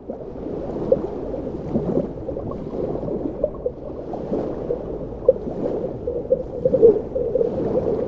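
Water gurgling and sloshing close to the microphone, as in a recording made in the sea, with scattered small pops.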